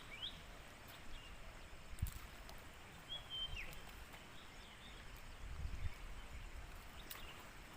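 Outdoor ambience with a bird calling: the tail of a run of quick rising chirps right at the start, then one short whistle that drops in pitch a little after three seconds in. A sharp knock about two seconds in and a low rumble near six seconds.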